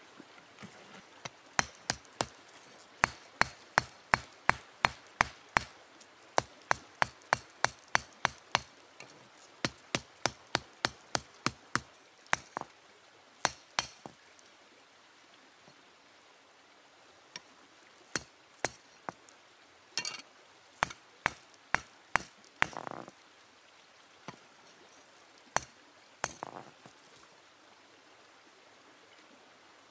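Hand-forging iron with a stone hammer: a steady run of sharp, clinking hammer blows about two to three a second, then a pause and a few scattered blows.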